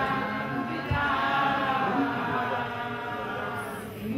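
A group of voices singing a chant-like song, with a couple of low thuds; the singing fades toward the end.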